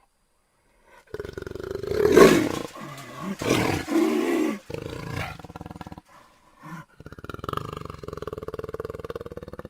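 Jaguar growling and roaring: rough, throaty roars that peak loudest about two seconds in and again around four seconds, then, after a brief break, a lower rapidly pulsing growl near the end.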